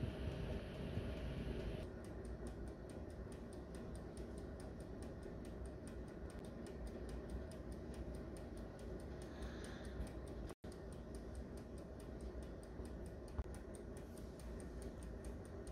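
Faint, even mechanical ticking, several ticks a second, over a low steady hum; the sound cuts out for an instant a little past the middle.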